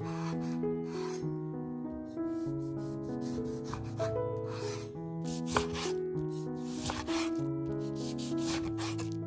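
Irregular rasping strokes of food being grated, with background music of slow, held notes.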